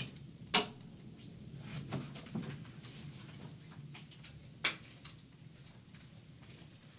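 Handling noise while a webcam recording setup is rearranged: two sharp clicks about four seconds apart and a few softer knocks, over a low steady hum.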